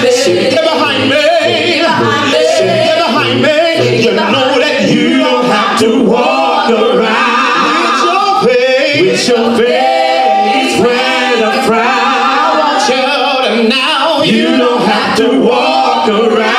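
Gospel praise team of several voices, men and women, singing in harmony into microphones, with long held notes that waver in pitch.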